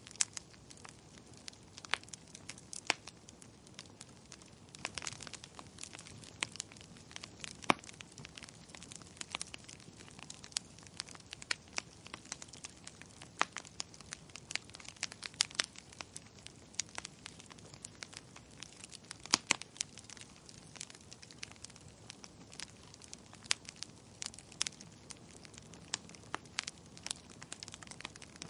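Wood fire crackling in a fireplace: irregular sharp pops and snaps, several a second, over a low steady hiss of flame.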